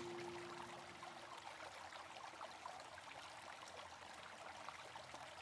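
Faint flowing river water, a steady hiss and burble with small splashes. The last held note of an acoustic guitar song fades out in the first second or so.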